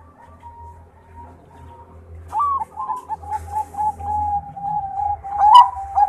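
Zebra dove (perkutut, Bangkok song type) cooing. Faint notes come first, then about two seconds in a rising note leads into a quick run of short, even coos, about three a second, growing louder toward the end.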